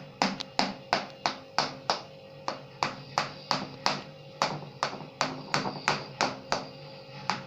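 A fork pricking pizza dough in a baking tray, its tines tapping through onto the tray about three times a second in a steady rhythm, over background music.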